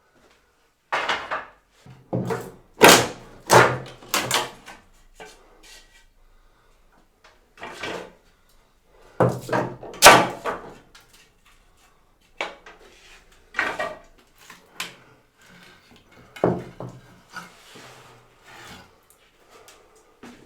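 Wooden boards being pulled off a wall: irregular knocks, creaks and clattering wood, loudest about three and ten seconds in.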